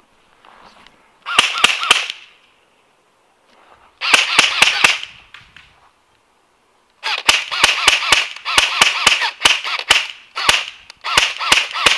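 G&G Firehawk airsoft electric rifle firing single shots in quick succession: three sharp shots, then a string of about six, then from about seven seconds on a long run at about four shots a second with brief breaks. The spacing fits semi-automatic fire, with the selector not yet on auto.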